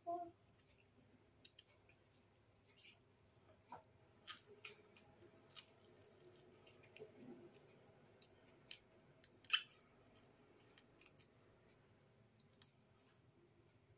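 Faint eating sounds of someone working at fried dried fish with her fingers and teeth: scattered sharp clicks, crunches and mouth smacks, the loudest about two-thirds through.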